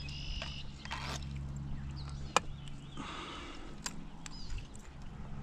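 Hands unhooking a largemouth bass in a plastic kayak: scattered clicks, knocks and rustling, with one sharp click about two and a half seconds in.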